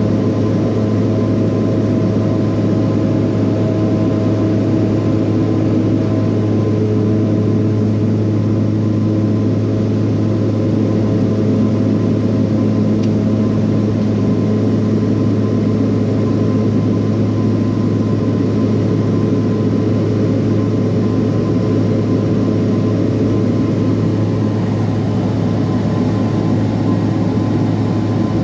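Steady, unchanging drone of a heavy engine, a constant low hum with steady tones above it.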